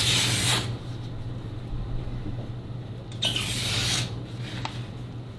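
Katana blade slicing through paper in a sharpness test, two short hissing strokes each under a second long, one at the start and one about three seconds in. The edge is one the owner judges could use a stropping.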